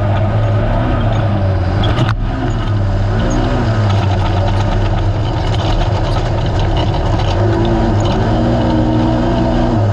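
Naturally aspirated racing UTV engine running hard, its pitch rising and falling repeatedly as the throttle is worked over rough ground, with steady rattling and one sharp knock about two seconds in.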